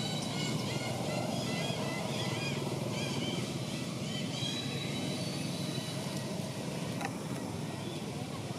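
Steady low outdoor background rumble with short, high chirps repeating over it.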